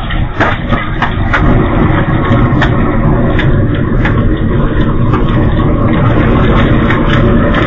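Electric car burning: a steady low roar of flames with irregular sharp crackles and pops.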